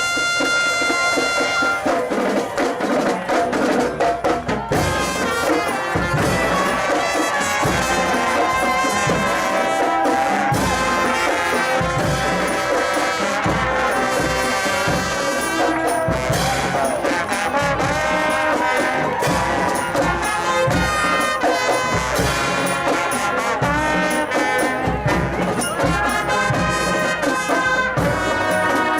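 Brass marching band playing: trumpets and trombones over a steady drum beat. A single long high note is held for about two seconds at the start before the full band comes in.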